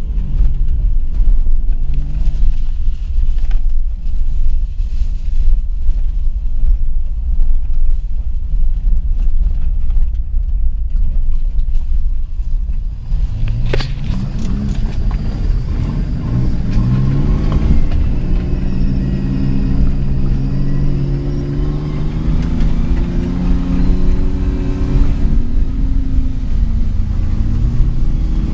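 Car engine running while driving on a dirt track, over a heavy steady rumble of road and wind noise. A sharp click comes about halfway, after which the engine is heard plainly, its pitch rising and falling as it revs up and down.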